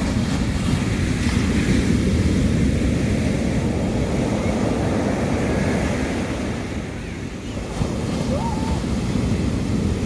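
Sea waves washing onto a beach, with wind buffeting the microphone. The surf swells over the first few seconds and eases briefly about seven seconds in.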